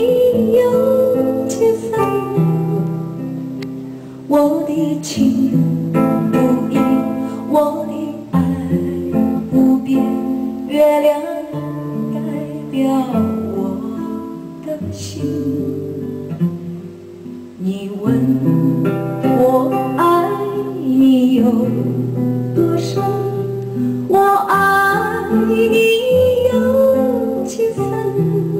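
A song with acoustic guitar, bass and singing, played back over loudspeakers driven by a single-ended 100TH/805 tube power amplifier and picked up in the room.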